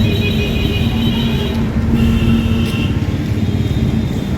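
Motor vehicle running with a steady low rumble, and a set of high steady tones that sound in spells over it.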